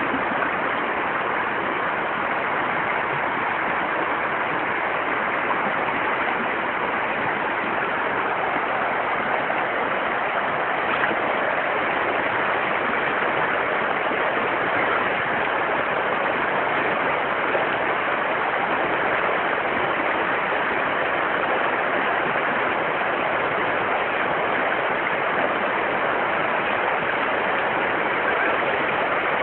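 Fast-flowing river running over rapids: a steady, even rush of water.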